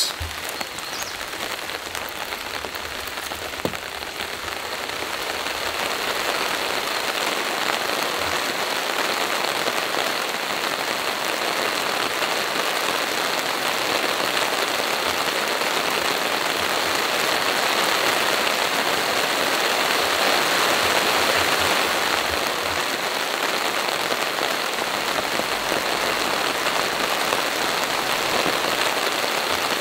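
Steady rain falling, growing louder a few seconds in and then holding even.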